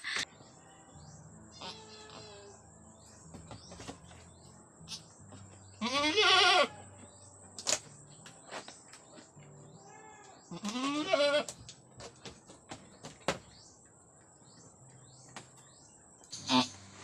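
Goat bleating: two loud, wavering calls, one about six seconds in and a longer one about ten to eleven seconds in, then a short call near the end.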